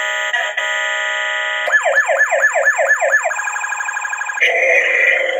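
Electronic sound effects of a My First Tonka Wobble Wheels toy fire truck. A steady electronic tone plays first, then a yelping siren that sweeps about four times a second. It turns into a faster warble, and a noisier, hissing sound takes over near the end.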